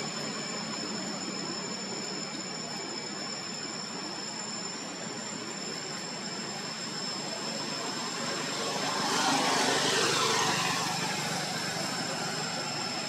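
Steady outdoor background noise with two steady high-pitched tones. About nine seconds in, a passing engine swells and fades over a couple of seconds, its pitch falling as it goes by.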